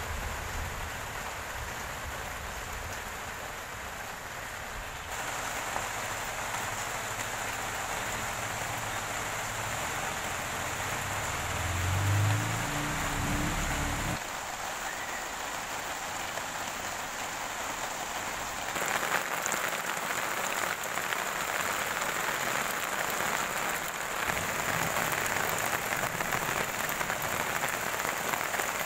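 Steady rain falling on bare dirt ground and on a plastic tarp. The rain grows louder about nineteen seconds in. A low rumble under it in the first half swells about twelve seconds in and cuts off at fourteen seconds.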